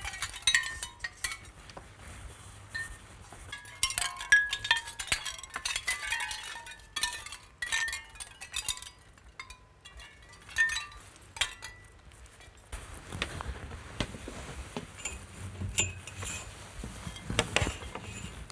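Strings of shell discs cut from mother-of-pearl shell clinking and tinkling against each other like a wind chime as the beaded curtain sways. About thirteen seconds in, the clinking thins out and gives way to fabric rustling and a few knocks as curtains are handled.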